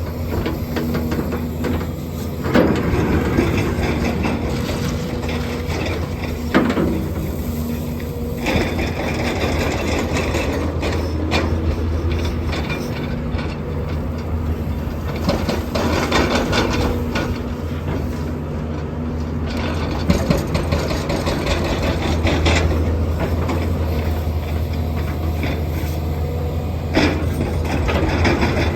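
Doosan excavator's diesel engine running steadily while it loads asphalt millings, with a few sharp clanks and knocks now and then.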